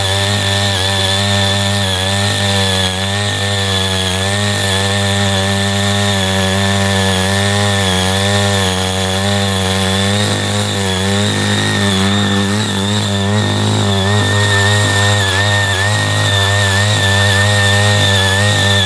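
Ching Yee CY80 mini power tiller's small engine running steadily as it ridges cloddy soil, its pitch wavering slightly with the load, with a thin steady high whine over it.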